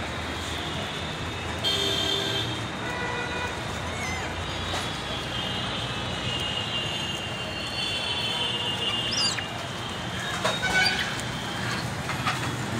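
Road traffic noise: a steady low rumble with long, drawn-out high tones through the middle and a brief rising chirp near the end of them.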